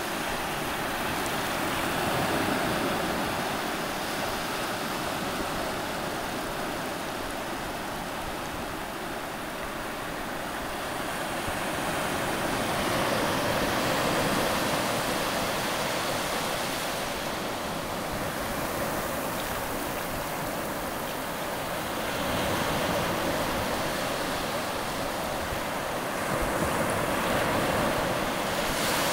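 Shallow water washing over a sandy bottom: a steady rushing of surf that swells and eases slowly, rising every several seconds.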